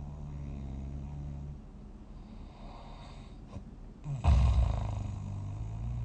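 A sleeping person snoring: a low, rumbling snore that ends after about a second and a half, then a sudden, much louder snore about four seconds in that tails off slowly.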